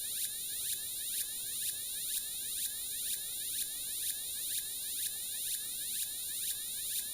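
Electronic mosquito-repellent sound: high-pitched synthetic tones sweeping in pitch, pulsing evenly about twice a second.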